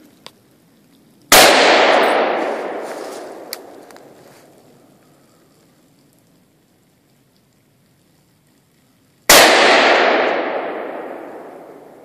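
Two .30-06 rifle shots from a Remington Model 742 Woodsmaster semi-automatic, about eight seconds apart. Each shot is followed by a long echo that rolls away through the woods and fades over about three seconds.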